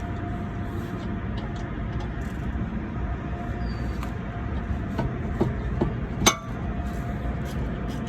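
Metal tools clinking against brake hardware while a caliper bracket bolt is undone with a socket wrench: a few light clicks, then one loud sharp clank about six seconds in, over a steady low background rumble.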